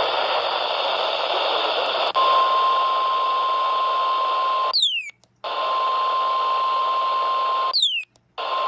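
NOAA Weather Radio receiver hiss. About two seconds in, a steady single high tone, the weather radio's 1050 Hz warning alarm tone, comes on. It is cut twice by a quick falling chirp and a brief dropout to silence, then resumes.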